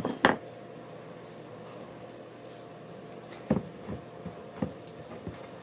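Scattered knocks and clunks of things being handled, the loudest a sharp knock just after the start and several smaller ones in the second half, over a steady low hum.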